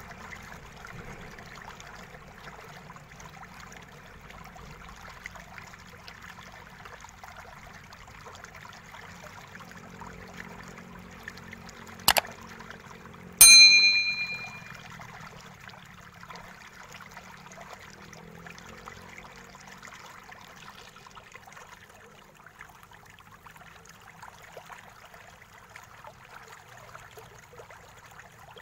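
A click sound effect, then about a second and a half later a bright bell ding that rings out for about a second: the sound of a YouTube subscribe-button animation. Under it runs a faint steady hiss.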